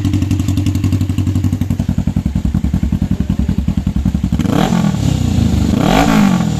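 Suzuki GS500's air-cooled parallel-twin engine idling through an SC Project aftermarket muffler, with a steady pulsing note. Near the end come two quick throttle blips, each rising and falling in pitch.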